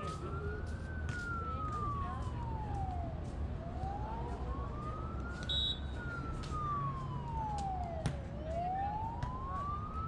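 A siren wailing, its pitch rising and falling slowly, one cycle about every five seconds, over a steady low rumble. A sharp knock sounds about eight seconds in.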